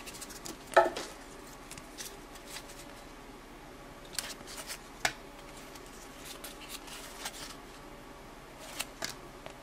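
Trading cards from a 1992-93 Topps Stadium Club pack being handled and flipped through one at a time: soft slides and light clicks of card stock, with a few sharper snaps around the middle and near the end.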